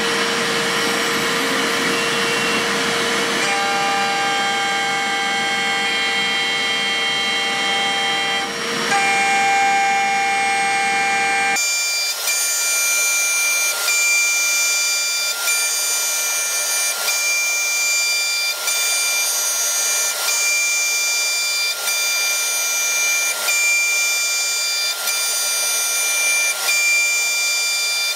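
A Holex 6 mm solid-carbide four-flute end mill on a DIY CNC milling machine, cutting C45 steel at 12,000 rpm, giving a loud, steady cutting noise with whining tones. About eleven seconds in, the sound changes abruptly to a thinner, higher whine with a faint tick about every one and a half seconds.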